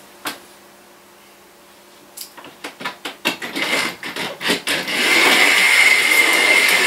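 Clicks and knocks as a model locomotive is handled and set back on the track. About five seconds in, an OO gauge model locomotive's small electric motor starts running, a steady noise with a high whine.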